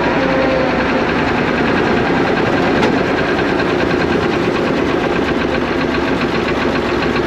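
Zetor 3011 tractor's diesel engine running steadily under way, heard from the driver's seat in the cab.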